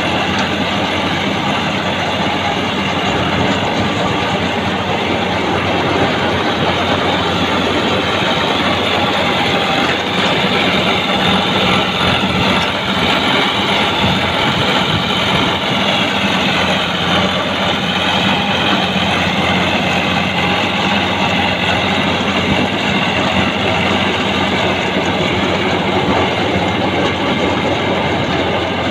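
Ford 4560 tractor's engine running steadily under load, driving a potato harvester.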